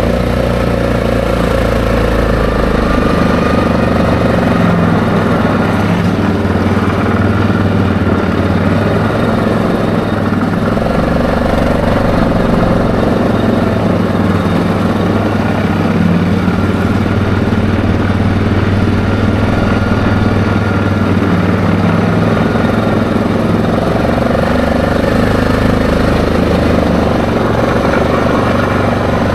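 ATV engine running steadily as it is ridden along a road, its pitch drifting a little up and down with the throttle.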